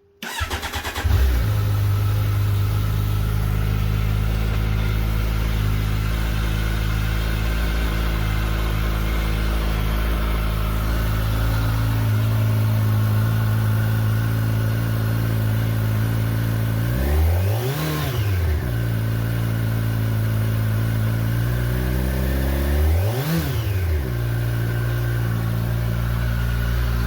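2021 Kawasaki Ninja 1000SX inline-four with its factory exhaust, cold-starting: the engine starts up about a second in and settles into a steady idle. In the second half it is given two quick throttle blips about five seconds apart, each rising and falling in pitch.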